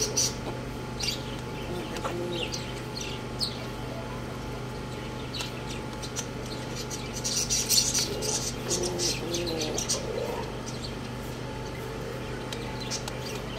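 Young roosters feeding from a steel bowl: quick pecking taps and short high chirps, thickest just past the middle, with a soft low clucking call soon after.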